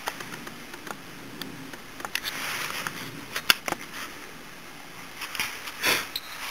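Scattered light clicks and taps, with faint rustling, from small engine parts being handled.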